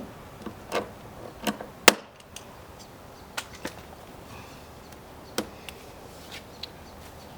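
Irregular sharp knocks and clicks, about half a dozen, the loudest just under two seconds in: tools and stud fittings being handled while a caravan draft skirt is studded on.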